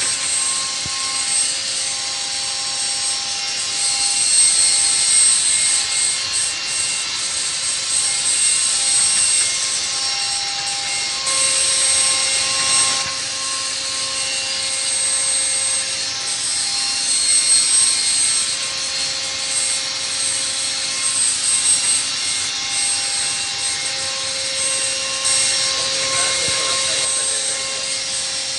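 Five-axis machining center's spindle turning a carbide ball-nose end mill at 6,000 rpm while high-speed milling a metal impeller. It makes a steady cutting whine with a high hiss, and several held tones that drop in and out as the cut moves over the blades.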